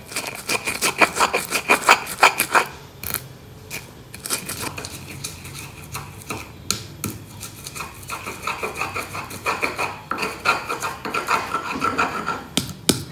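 Stone pestle (ulekan) grinding spices in a volcanic-stone mortar (cobek): rapid strokes of stone on stone, heaviest in the first few seconds, lighter in the middle, then a steady run of strokes again near the end.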